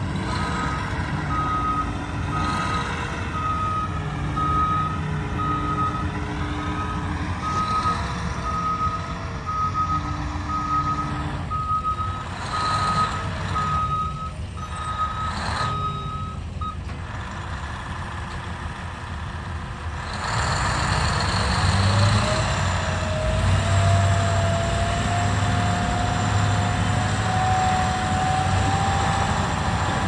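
XCMG XDE130 mining dump truck backing up, its reverse alarm giving repeated steady beeps over the drone of its diesel engine. The beeping stops a little past halfway, and about two-thirds in the engine gets louder with a slowly rising whine as the dump body is hoisted to tip the load.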